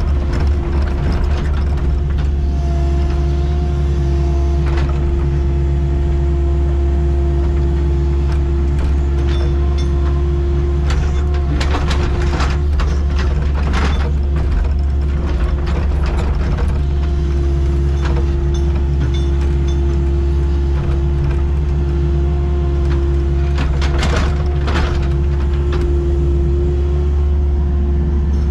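Excavator's diesel engine running steadily, a low drone with a steady whine over it, with bursts of clanks and knocks from the machine working, about halfway through and again near the end.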